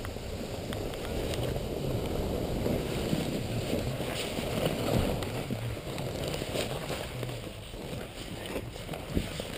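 Steady scraping hiss of gliding over snow on a downhill run, with wind on the microphone and a few faint clicks.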